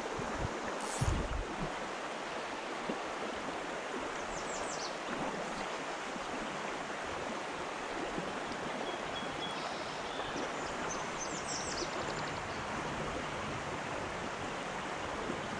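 Creek water flowing with a steady rush. Brief high chirps come twice over it, once about four seconds in and again about eleven seconds in.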